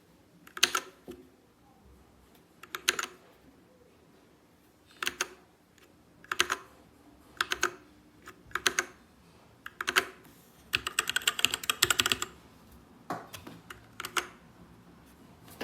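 Dierya DK61se 60% mechanical keyboard with red linear switches being typed on: short clusters of keystrokes every second or two, with a quick run of rapid typing about eleven seconds in.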